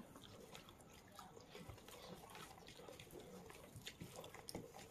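Faint, wet eating sounds: fingers mixing plain rice into fish curry on a plate by hand, with many small sticky clicks.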